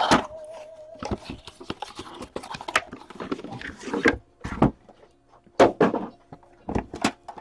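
Irregular taps, clicks and rustles from trading cards and their packaging being handled on a table.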